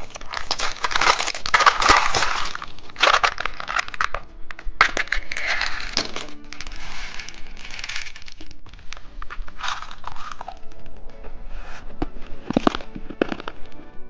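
Plastic candy packaging crinkling and rustling as it is unwrapped and handled, with sharp clicks and cracks of hard plastic, over background music.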